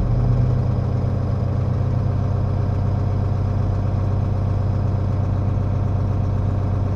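Tractor's diesel engine running steadily, with the hydraulics held on so the planter settles all the way down and its lift cylinders phase.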